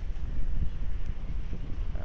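Wind buffeting the microphone on the open deck of a ship under way, an uneven low rumble, over the wash of sea water streaming along the hull.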